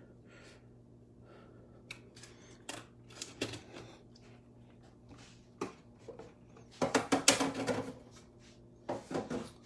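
A clear plastic cup and its perforated plastic lid being handled: scattered light clicks and rustles, with a louder stretch of rattling and scraping about seven seconds in, over a faint steady hum.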